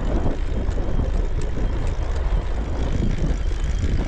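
Strong headwind buffeting the microphone: a loud, uneven low rumble.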